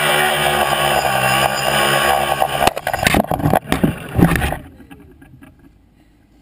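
Tricopter's three electric motors and propellers droning steadily in flight, then about three seconds in a clatter of knocks as it comes down into a plastic bucket, after which the motors wind down with a short falling whine and it goes quiet.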